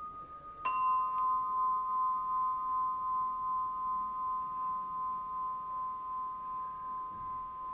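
A singing bowl is struck once, about half a second in, and rings a clear sustained tone with a slow wavering pulse that gradually fades. At the start, the higher tone of the previously struck bowl dies away.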